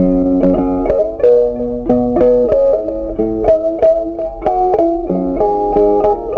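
Background music: a plucked guitar playing a melody of quick, separate notes.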